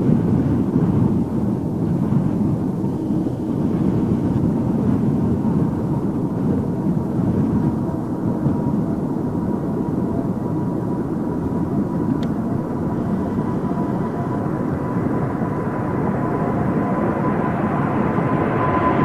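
Airplane engines running with a steady rumble and a thin steady whine above it, growing a little louder near the end.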